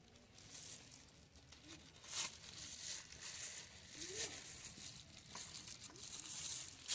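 Crinkling and rustling in short, scattered bursts as store-bought chicken meat is taken out of its wrapping.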